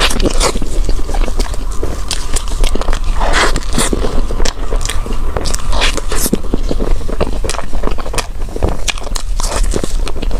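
Close-miked eating: food being bitten and chewed, with many small crisp crunching clicks and scraping.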